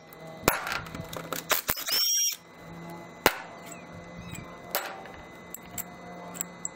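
Cordless impact driver spinning briefly, once, with a rising whine, backing a cylinder head bolt out of a Chevy 283 small-block, with scattered light metal clinks of bolts and tools being handled.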